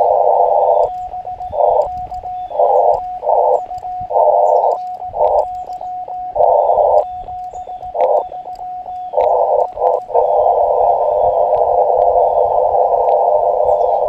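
Elecraft KX2 transceiver audio from a small speaker. The filtered receiver hiss stops about a second in and gives way to a thin, steady sidetone as Morse code is sent on a paddle key, with short bursts of hiss returning between groups of characters. After about ten seconds the sending ends and the receiver hiss carries on steadily. Birds chirp faintly in the background.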